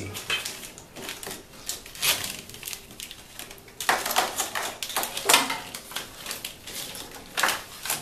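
Wiring harness in corrugated plastic split loom being gathered and moved by hand, its plastic connectors and loom clicking and rustling in irregular bursts.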